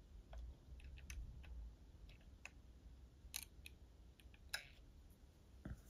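Faint, scattered small clicks and taps of fingers and a small tool on a plastic scale-model deck and railing while spots of glue are put down, two slightly louder clicks in the middle, over a low background rumble.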